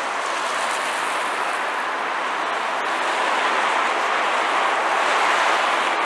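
Road traffic: the steady tyre hiss of cars going by on a wet winter road, swelling a little in the second half.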